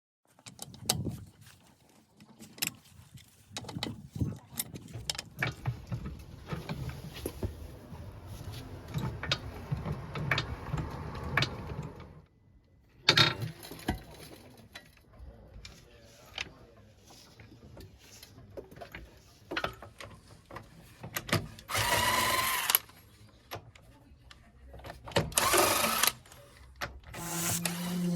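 Tools working on a car engine during timing belt removal: irregular clicks, taps and clatter of metal parts and tools, with two louder bursts of about a second each near the end.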